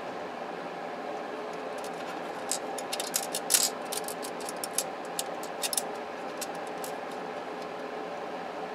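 Light clicks and rattles of small screws and a screwdriver being handled against hard plastic, a quick irregular run of them in the middle, over a steady hum.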